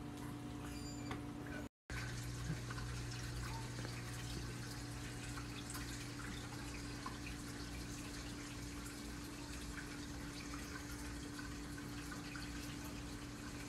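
Reef aquarium running: a steady low pump hum with water trickling and dripping from the tank's circulation. The sound briefly drops out about two seconds in.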